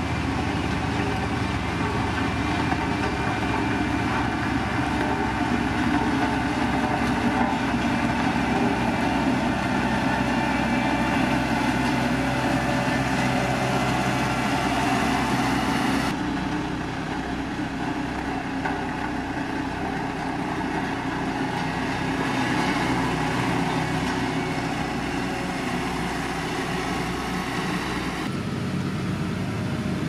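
Diesel engines of single-drum road rollers running steadily as they compact a gravel road base. The sound changes abruptly about halfway through and again near the end.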